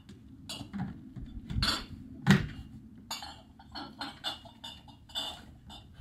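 Glass jars clinking and knocking together as they are handled and set down, a string of short clinks with one loud knock a little over two seconds in.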